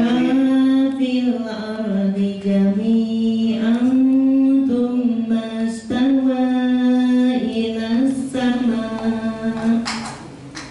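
A woman reciting the Quran in a melodic chant, holding long notes that bend slowly in pitch, with short pauses between phrases.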